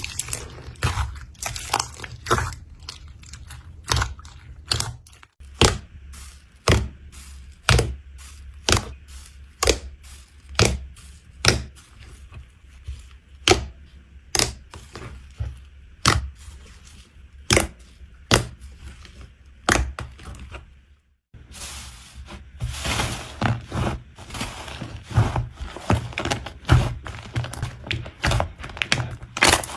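Slime being pressed and poked by hand, giving sharp clicking pops about once a second. After a brief break about two-thirds of the way in, the pops come faster and crowd together into crackling.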